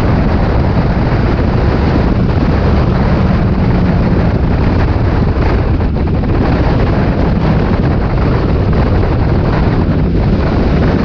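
Onboard sound from a Mk4 Ford Fiesta stock car at racing speed on a wet track: the engine running at steady revs, buried under heavy wind buffeting on the in-car camera microphone.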